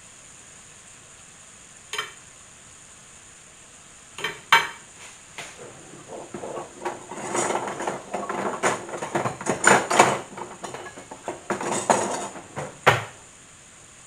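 Kitchen utensils and dishes clattering: a single clink about two seconds in, then a busy run of knocks and rattles from about four seconds in until near the end. Underneath is the faint steady sizzle of dough frying in oil.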